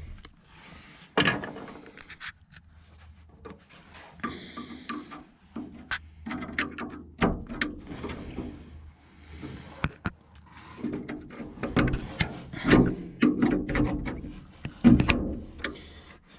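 Irregular metal clicks, scraping and sharp knocks as a spring-held window retainer clip is worked off its pin inside an M35A2 army truck door, with the loudest knocks about a second in and several more near the end.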